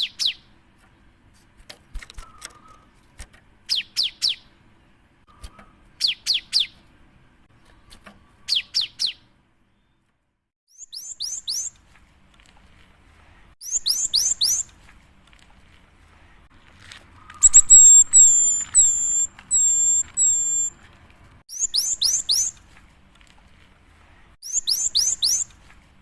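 Cinereous tit (gelatik batu) singing. It gives short clusters of three or four quick, high, downward-sweeping notes repeated every two seconds or so, with a run of about five repeated clear notes about two-thirds of the way through.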